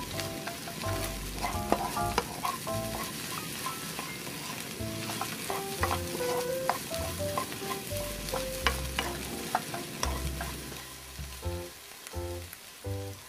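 Chopped vegetables, scrambled egg and dried shrimp sizzling in a frying pan while a wooden spatula stirs them, scraping and clacking against the pan now and then.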